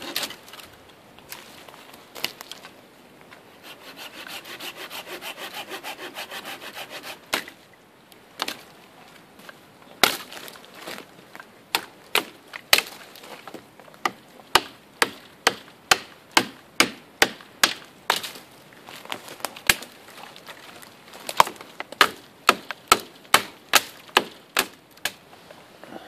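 Knife blade working dead spruce branches. A few seconds of quick sawing strokes come first, then a long run of sharp chopping hits into the wood at about two a second.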